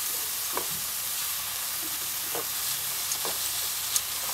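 Silkworms sizzling steadily as they are stir-fried in oil in a pan, with a few brief scrapes of the stirring utensil and a sharp click about four seconds in.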